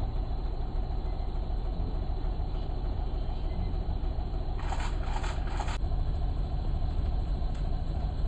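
Safari vehicle's engine running steadily with a low rumble. About five seconds in, three quick, higher-pitched bursts sound in a row.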